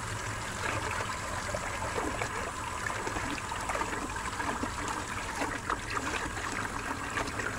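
Water splashing and sloshing in a bowl as hands scrub and rinse cut lobster pieces, with a steady run of small splashes and trickles.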